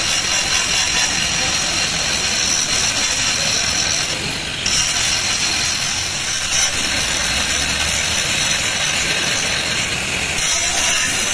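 Angle grinder with an abrasive disc cutting into a steel truck tie rod: a steady high whine and hiss, with a brief dip in level about four seconds in.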